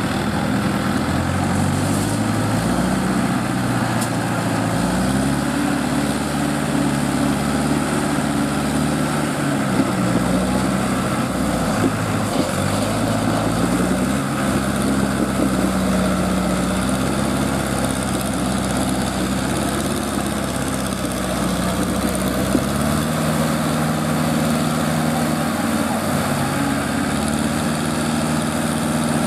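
Diesel engine of a pick-and-carry hydra crane running steadily, its speed rising and falling several times while the crane works a lift.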